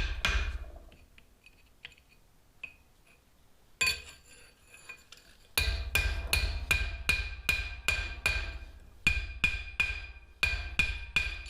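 Hand hammer striking a hot punch into the forge-welded spring-steel face of a nail header on the anvil, each blow ringing. A few blows come at first, then after a pause a steady run of about three blows a second. The steel is too hard to punch at this heat.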